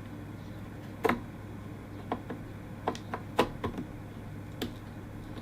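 Light, irregular clicks and taps, about seven of them, as a DDR4 SO-DIMM RAM module is handled and pushed down into the iMac's memory slot, over a steady low hum.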